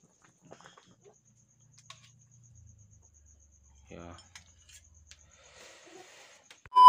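Faint clinks and scrapes of a metal ladle against a wok and a ceramic plate as fish and broth are served. Near the end comes a short, loud steady beep.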